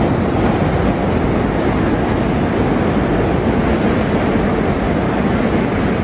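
Steady, loud rushing noise with a heavy low rumble and no distinct events: outdoor street ambience.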